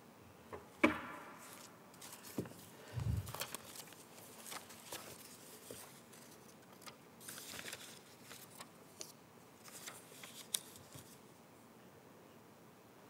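Handling noise picked up by a lectern microphone: scattered clicks, knocks and rustles, with a sharp knock about a second in, a low thump about three seconds in, and paper-like rustling and small clicks that stop about eleven seconds in.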